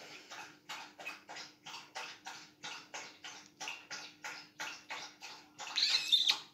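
Dog lapping water from its bowl, a steady run of quick wet laps at about three to four a second, with a louder burst near the end.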